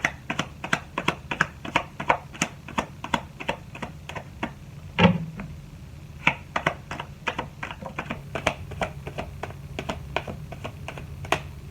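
A quick, uneven run of sharp clicks or taps, about three a second, with one heavier knock about five seconds in, over a faint steady low hum.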